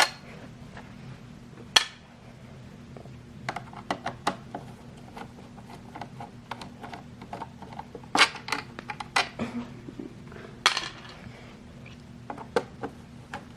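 Screwdriver backing out the screws that hold the fan in a PC power supply's metal case: irregular sharp clicks and small metal ticks, with a few louder knocks.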